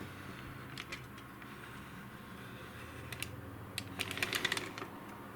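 A few light, sharp clicks, then a short quick clatter of clicks about four seconds in, like small hard objects being handled and set against each other, over a low steady hum.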